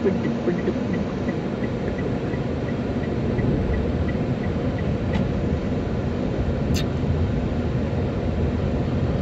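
Steady engine and road noise inside a moving Toyota Wigo hatchback. A light ticking about three times a second runs through the first half, and one short, sharp, high-pitched sound comes about two-thirds of the way through.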